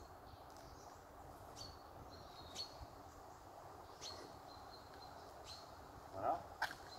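Quiet outdoor ambience with birds chirping now and then, a few faint clicks, and a short rising squeak about six seconds in.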